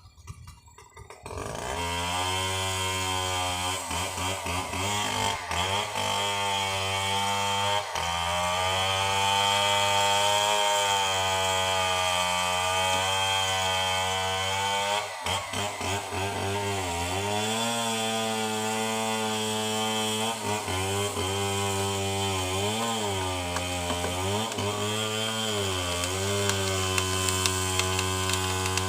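Petrol chainsaw engine coming up to full speed about a second in, then running hard. Its pitch sags and recovers again and again as the chain bogs down and frees up while cutting.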